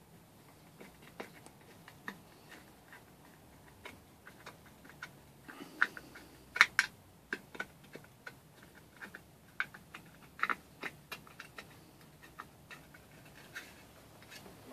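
Irregular clicks and taps of small engine parts and hand tools being handled and fitted, with a cluster of louder clicks a little past the middle.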